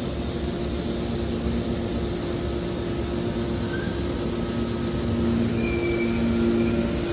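Metal baling machine running with a steady mechanical hum, its two low tones growing louder about five seconds in, with faint short high squeaks near the end.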